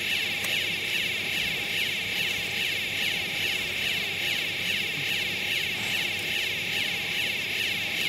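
Steady, even whirring of running machinery, mostly a high buzz with a faint steady tone underneath.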